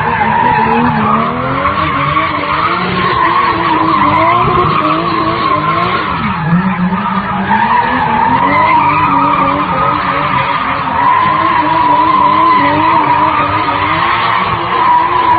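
Car drifting in tight circles, its tyres squealing steadily while the engine note rises and falls with the throttle. About six seconds in, the engine note dips and climbs back.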